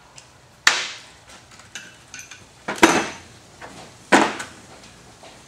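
Metal tools and parts clanking as they are handled and set down: three loud clanks, about one second in, near the middle and about four seconds in, with lighter clinks between.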